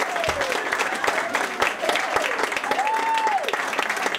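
Audience applauding, with a few voices calling out over the steady clapping.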